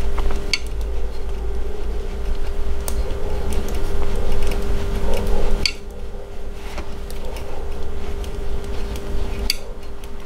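Metal knitting needles clicking and scraping against each other as stitches are worked, with a few sharper clicks a couple of seconds apart, over a steady low hum.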